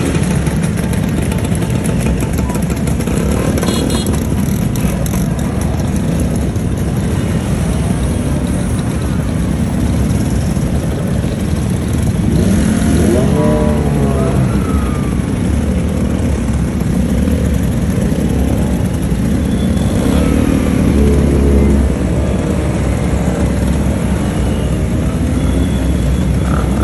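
A long procession of motor scooters riding past one after another, their small engines running and revving. The pitch rises and falls as individual scooters accelerate by, most clearly about halfway through.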